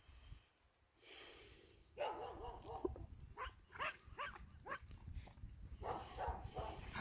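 A run of short, sweeping animal yelps, starting about two seconds in and coming again near the end.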